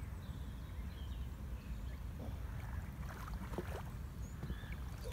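Wind rumbling steadily on the microphone, with a few short, faint high chirps.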